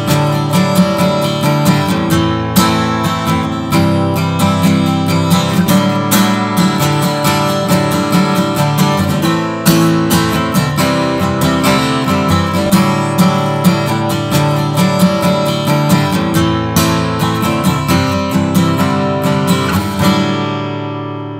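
Martin DSS-17 steel-string acoustic guitar strummed by hand, steady chord strumming, with the last chord left ringing and fading near the end. The playing switches from light-gauge to medium-gauge Martin Retro strings partway through.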